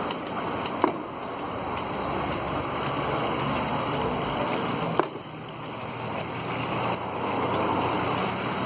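Water running steadily down a small decorative rock waterfall, with two sharp clicks, one about a second in and one about five seconds in.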